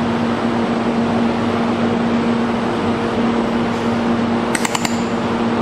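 Automatic welding machine running with a steady electrical hum over a constant hiss, and a quick run of sharp clicks near the end.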